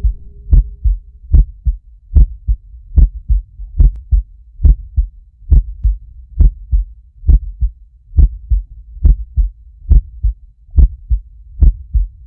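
Heartbeat sound effect: paired low thumps, lub-dub, repeating steadily at about 70 beats a minute. A steady electronic tone cuts off about half a second in.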